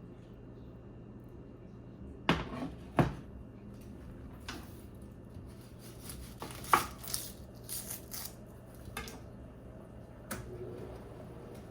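Kitchenware being handled: scattered sharp knocks and clinks, the loudest two about two and three seconds in and another near seven seconds, with a steady low hum beneath.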